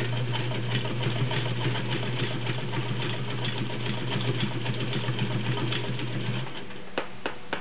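Vintage White model 626 sewing machine's 1.3-amp motor sewing a zigzag stitch through six layers of denim with a size 16 needle, at less than full speed: a steady motor hum with fast stitching clatter. It stops about six and a half seconds in, followed by a few light clicks.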